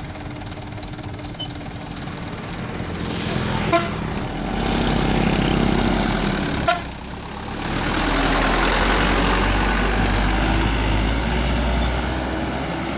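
Heavy road vehicles passing one after another, each swelling up and fading away, with a short horn toot about four seconds in and another near seven seconds.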